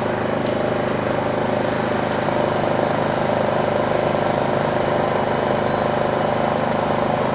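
Craftsman 3000i inverter generator's engine running steadily with eco mode off, a little louder from about two seconds in.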